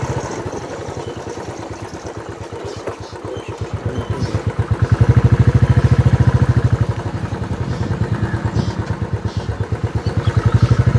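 Motorcycle engine running while under way, a fast, even putter of firing pulses that grows louder about five seconds in.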